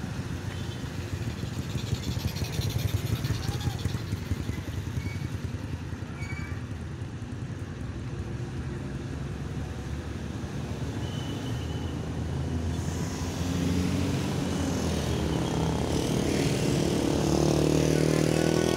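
Road traffic: the engines of motor vehicles, motorcycles among them, running past. The sound grows louder over the last several seconds as a heavier vehicle approaches.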